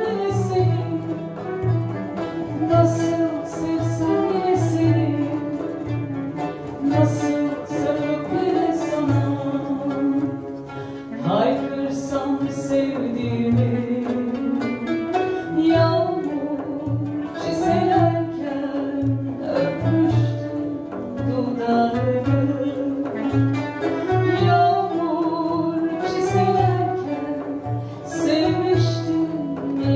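A woman singing a slow song with vibrato over instrumental backing of strings and a plucked accompaniment, with a steady pulsing bass beat underneath.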